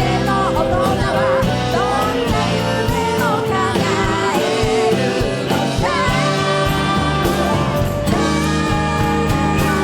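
Live pop band playing, with drums, bass, piano and guitars under a wavering, gliding melody line; about six seconds in the band settles into held, sustained chords.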